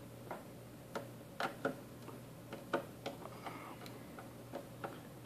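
Faint, irregular clicks and ticks of a magnetic-tip screwdriver turning out small screws from a Cisco AP541N access point's metal case, about a dozen over a few seconds.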